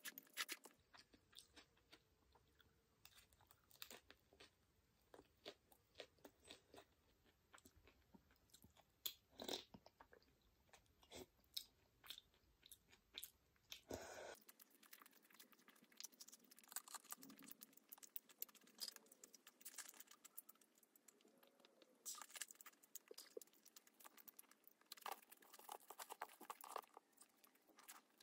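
Quiet, close-miked eating sounds: chewing with many short crunches and mouth clicks.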